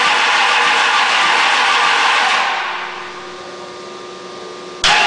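A freshly installed hot rod engine running in a pickup on its first start-up in the truck. It holds a steady fast idle, drops to a quieter, lower idle about two and a half seconds in, then jumps abruptly back up near the end.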